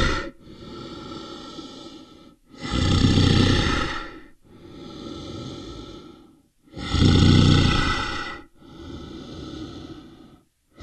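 An animal's loud, breath-like calls: three loud calls about 1.5 s long, each followed by a softer call, in a steady in-and-out rhythm.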